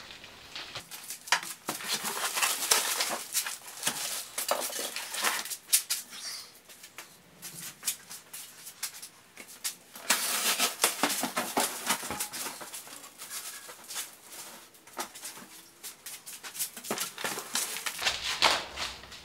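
Rustling, crinkling and scraping of plastic wrap, styrofoam and cardboard packaging as bandsaw parts are handled inside the shipping box. It comes in bursts: busiest from about one to six seconds in and again around ten to twelve seconds in, with quieter stretches between.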